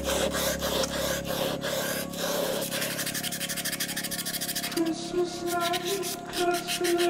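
Rubbing strokes on a Harri Merimaa knife being maintained by hand, about three strokes a second, turning to quicker, finer strokes partway through. Soft background music with a singing voice runs underneath.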